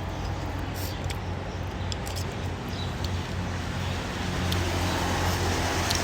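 A motor vehicle's engine running steadily with road noise: a low hum that grows somewhat louder about four and a half seconds in.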